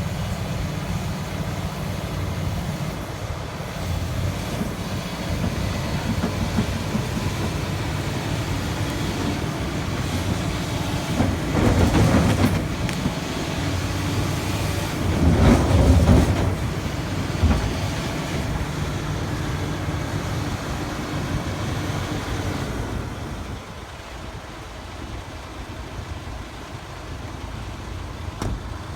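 Heavy diesel machinery, an excavator working with a dump truck, running steadily. It swells louder twice in the middle and turns quieter for the last few seconds.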